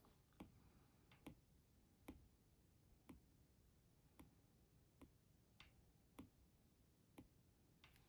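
Faint taps of a stylus's plastic tip on a tablet's glass screen, about nine light clicks roughly a second apart, over near silence.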